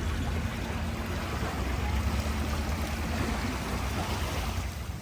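Boat motor idling steadily, a low hum under a wash of wind and water noise.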